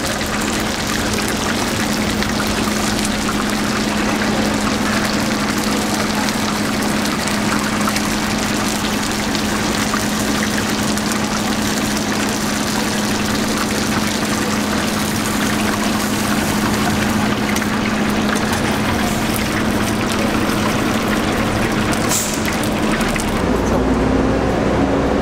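Steady street-stall background noise: a continuous hiss with a steady low hum, which stops shortly before the end as a deeper hum takes over.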